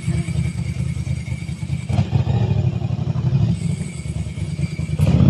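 Motorcycle engine running close by, a loud, rapid low throb that covers everything else, with a sharp knock near the end.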